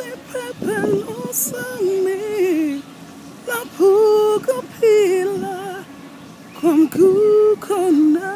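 A single voice singing a slow melody in phrases of long held notes with a slight waver, separated by short pauses.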